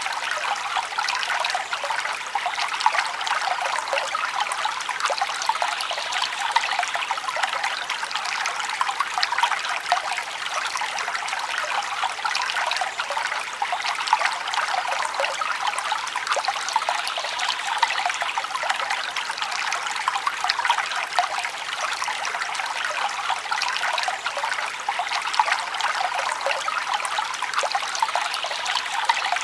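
Small forest stream babbling and trickling over stones, a steady splashing with fine bubbling and no low rush.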